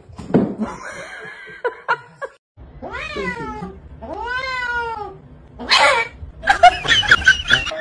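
Domestic cat yowling in long drawn-out meows, each bending up and then down in pitch, while held for a procedure at its hind leg: a protest at being restrained. Near the end the cries get louder and more ragged.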